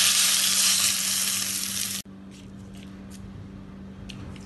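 Hot coconut-oil tempering of mustard seeds, dried red chillies and curry leaves sizzling loudly as it is poured onto mango curry in a bowl. The hiss cuts off abruptly about two seconds in, leaving only a few faint clicks.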